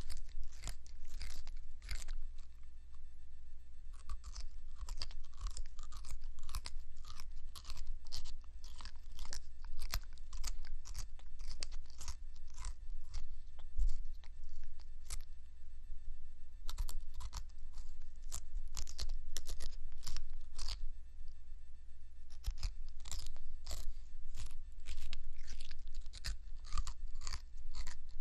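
Eastern lubber grasshopper chewing a leaf: an irregular run of crisp little crunching clicks, a few a second, as its mandibles bite off pieces of the leaf edge. A steady low hum runs underneath.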